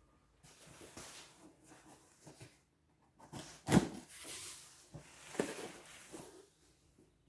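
Cardboard shipping boxes being handled: the top box is slid off a stack and set down on a table, with cardboard scraping and rustling and one sharp knock about four seconds in, followed by a few lighter knocks.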